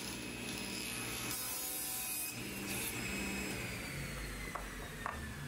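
Plywood scraping and sliding on a table saw's crosscut sled as cut pieces are handled. A faint whine slowly falls in pitch through the second half, and there are two light clicks near the end.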